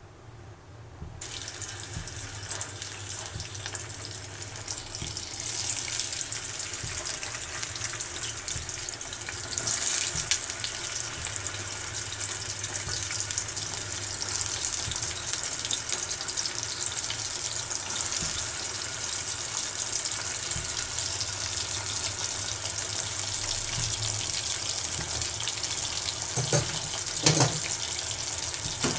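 Cubes of paneer frying in hot oil, sizzling steadily from about a second in, with a couple of knocks near the end.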